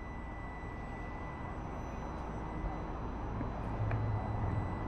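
Ducati Streetfighter's L-twin idling low and steady, with a thin steady whine from an add-on cooling fan on the regulator-rectifier, fitted because the regulator runs hot when the bike stands idling. The low engine hum grows a little louder about three and a half seconds in.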